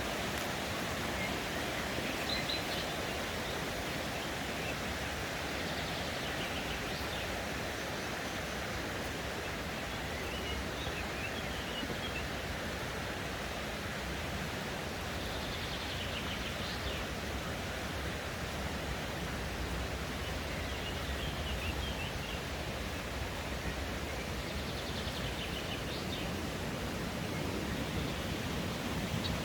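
Mountain stream rushing steadily over rocks, with small birds chirping faintly now and then.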